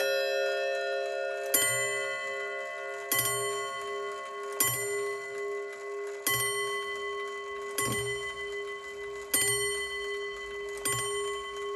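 Seth Thomas Sonora mantel clock striking the hour on its bells: seven evenly spaced blows about every one and a half seconds. Each stroke rings on over the same note, with a short low rumble after each blow.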